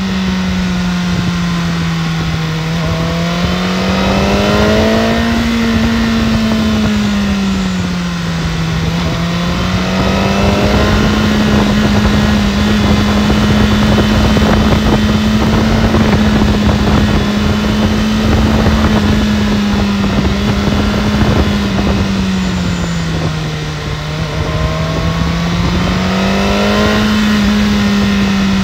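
BMW S1000RR inline-four engine running at a fairly steady speed, its pitch drifting gently up and down, with a steady rush of wind noise. Rising whining tones from a second source come in twice, early and near the end.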